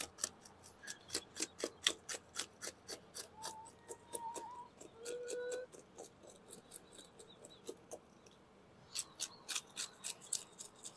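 Small serrated knife scraping the scales off a black sea bass on a plastic cutting board: quick rasping strokes, several a second, that pause for about a second and a half after the middle and then start again.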